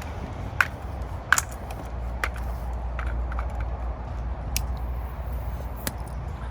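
Scattered sharp clicks and taps of a bicycle pump and inner-tube valve being handled, about six at irregular times, over a steady low rumble.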